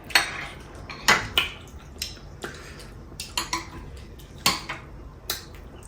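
Cutlery clinking and scraping on plates during a meal, in about nine short, irregular clinks.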